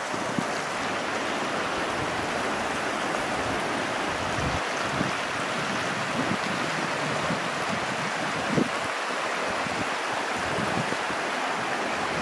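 Shallow, rocky mountain river rushing steadily over stones and boulders in a strong current.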